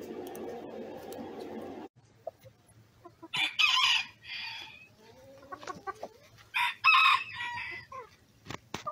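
A steady rushing noise stops suddenly about two seconds in. Then chickens call: two loud, drawn-out calls in two parts each, with soft clucking between them and a couple of sharp taps near the end.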